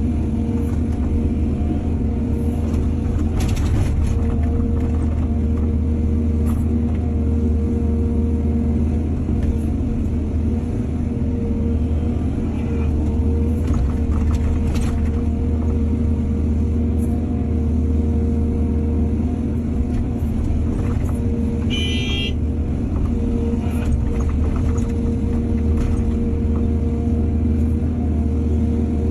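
Heavy diesel engine of an excavator running steadily under load, a deep even drone, with a few sharp knocks and a brief high squeal about three-quarters of the way through.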